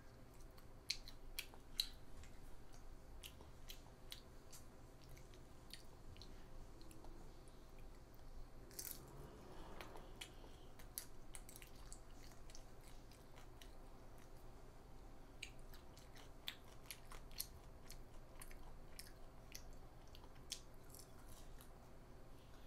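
A young child chewing a mouthful of food: faint, scattered wet mouth clicks and smacks.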